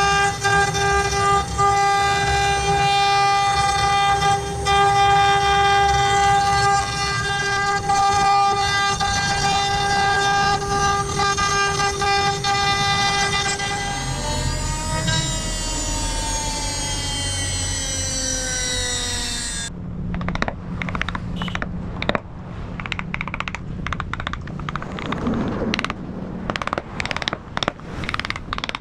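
CNC router spindle running with a steady high whine, then spinning down, its pitch falling smoothly over about five seconds. It gives way abruptly to a run of irregular clicks and knocks.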